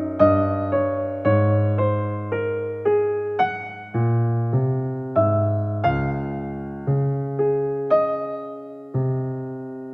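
Background music: slow, gentle piano or electric piano, notes struck about once or twice a second over sustained bass notes, each note fading away.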